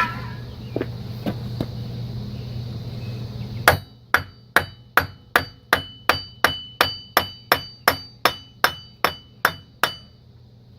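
Hammer blows on a punch set in the end of the front CV axle shaft, driving the axle out of the wheel hub. After a few seconds of quiet background hum, a run of about seventeen evenly spaced strikes begins, roughly two and a half a second, each with a short metallic ring, stopping shortly before the end.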